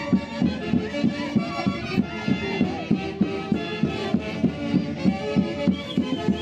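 Live Andean traditional music of the Santiago festival from an orquesta típica: a melody with gliding, ornamented notes over a steady, quick drum beat.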